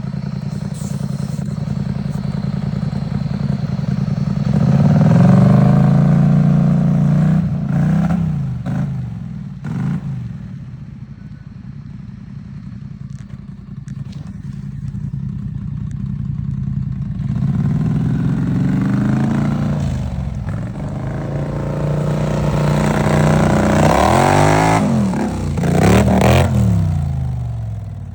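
Polaris Scrambler ATV engines revving up and down, loudest from about five to eight seconds in and again from about seventeen seconds to near the end. A few sharp clatters are heard among the revving.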